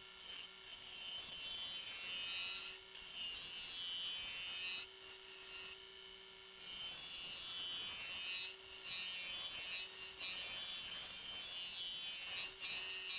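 Carbide-tipped turning tool cutting a spinning colored-pencil and epoxy-resin bowl blank on a Nova Comet II lathe: a hissing scrape in several passes. Between passes, the lathe's steady motor tone shows through.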